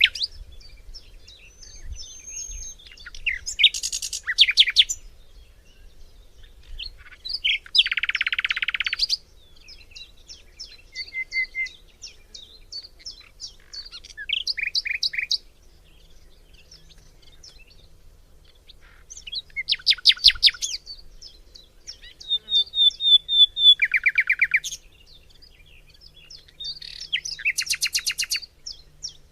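Several forest songbirds singing and calling at once: rapid trills and short song phrases come in bursts every few seconds, with scattered single chirps between them.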